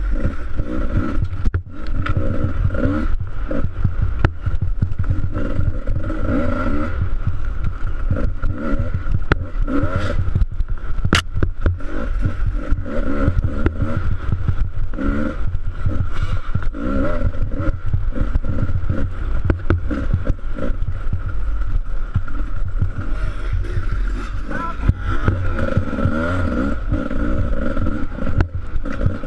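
Off-road motorcycle engine running hard and revving up and down as the throttle opens and closes, with rattling from the bike and a heavy low rumble of wind on the microphone.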